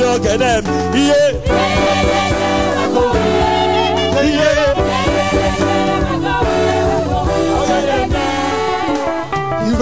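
Gospel praise song: voices singing a melody over a band accompaniment.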